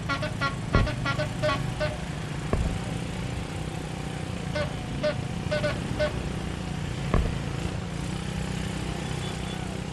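Tour bus's basuri 'telolet' multi-tone horn sounding a quick pulsing run of notes, about four a second. It plays for the first two seconds and again briefly about halfway through, over the steady low rumble of the bus engine.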